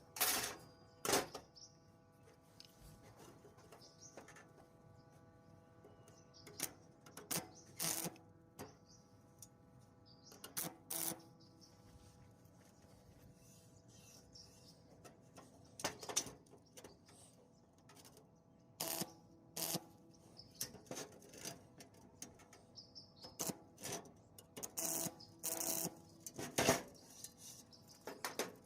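Scattered sharp clicks and knocks, several in quick succession and then pauses, over a faint steady hum.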